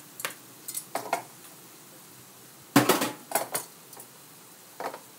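Kitchen utensils and dishes clinking and clattering as they are handled, a series of short sharp knocks with a louder cluster about three seconds in.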